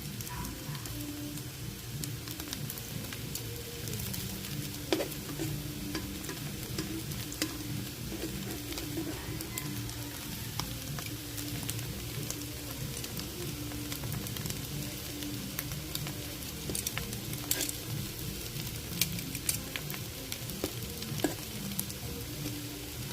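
Food frying in a hot oiled pan, a steady sizzle with scattered sharp pops and crackles.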